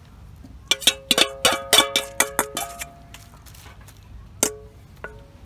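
Metal spoon clinking against stainless steel bowls as salad dressing is poured and tossed in: a quick run of about a dozen ringing clinks over two seconds, then two single clinks near the end.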